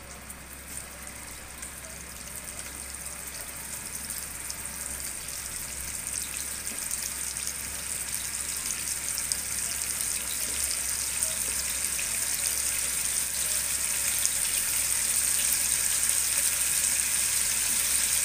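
Small minced-beef meatballs sizzling in shallow oil in a non-stick wok, with a fine crackle, as they are fried until golden. The sizzle grows steadily louder as more balls go into the pan.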